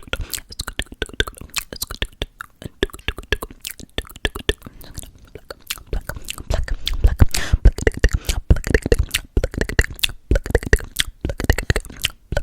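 ASMR mouth sounds close to the microphone: rapid wet clicks and smacks, growing louder and fuller about halfway through.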